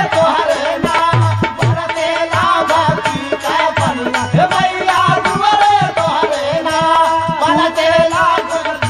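Bhojpuri devotional folk music between sung verses: a wavering melody over a steady hand-drum beat with jingling percussion.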